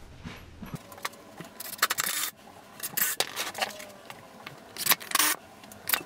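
Wooden boards being picked up, slid and set down on a workbench: a few short scrapes and knocks, roughly a second or two apart.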